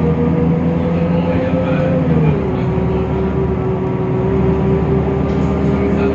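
Temsa Avenue LF city bus with its DAF PR 228 diesel engine and ZF Ecolife automatic gearbox running, with a strong steady whine over the engine. The whine rises slightly, then drops in pitch a little over two seconds in, as a lower hum cuts out. The uploader calls the sound strange and unlike the usual for this bus.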